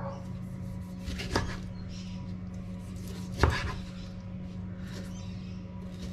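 Kitchen knife dicing a tomato on a wooden chopping board: a few separate taps of the blade on the board, the loudest about halfway through.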